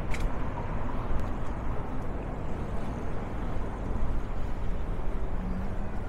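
City street traffic noise: a steady low rumble of passing cars.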